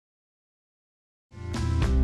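Dead silence, then background music comes in about a second and a quarter in and swells quickly, with sustained instrument notes and a regular beat of drum hits.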